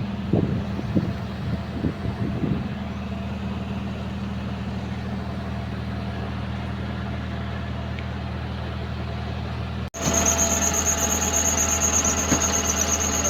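The Isuzu 4HK1 diesel engine of a Hitachi excavator idling steadily. About ten seconds in, the sound cuts abruptly to a louder running engine with a high-pitched whine over it.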